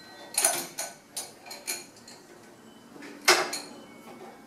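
Crescent (adjustable) wrench tightening a hose nut on a brass pump fitting: a series of small metal clinks and knocks as the wrench is placed and turned, the loudest about three seconds in.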